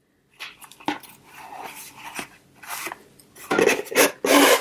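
Rustling and scraping of a cloth dust bag being lifted out of a cardboard gift box, with a few light knocks; the loudest rustles come near the end.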